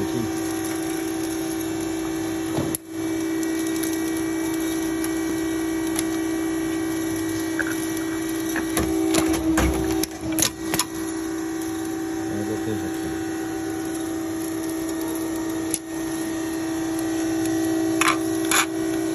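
Hydraulic fan-blade riveting machine running with a steady hum from its power unit, with a cluster of sharp metallic clunks about halfway through as the riveting head strokes on the blade. A few lighter metallic clicks come near the end.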